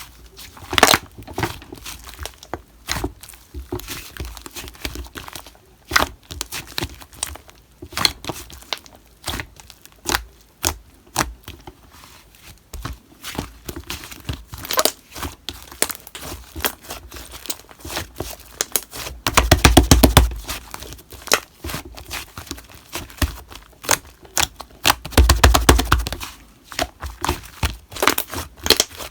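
Slime being squished and stretched by hand: a steady stream of sticky pops and clicks, with two stretches of fast crackling, one just past the middle and one near the end.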